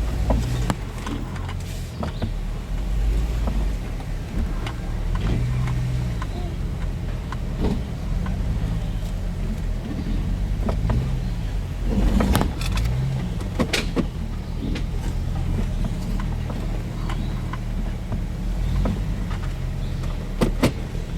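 Lifted Jeep's engine running at low speed while crawling a rocky trail, its note swelling and easing several times with the throttle. Scattered sharp knocks and clatters, most of them about twelve to fourteen seconds in.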